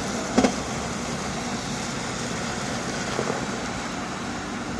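Steady road and engine noise inside a moving car, with two sharp knocks close together about half a second in.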